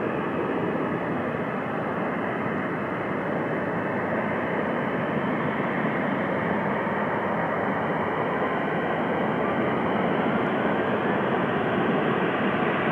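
Jet engines of a taxiing airliner running at low thrust: a steady rushing noise with a faint whine that slowly glides in pitch, growing a little louder near the end as the aircraft turns toward the listener.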